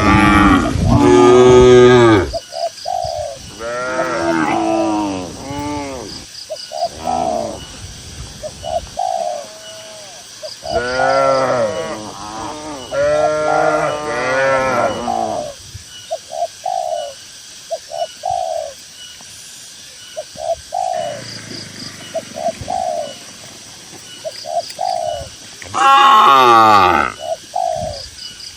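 Cattle mooing: several long, drawn-out moos, the loudest at the very start and again near the end. Between the moos a dove coos in short, repeated low notes, with faint high chirps behind.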